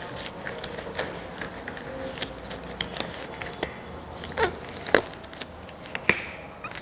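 Sterile surgical gloves being pulled on and worked over the fingers: soft rubbery rustling with scattered sharp snaps, the loudest about four and a half to five seconds in and again just after six seconds.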